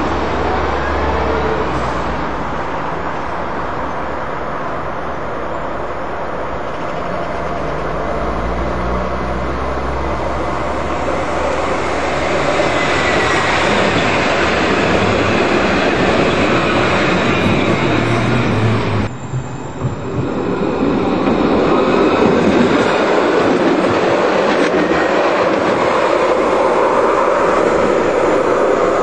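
Luas light-rail trams running along the track: the rolling and motor noise builds as one tram passes close and moves away around the middle, and stays loud as another tram approaches near the end.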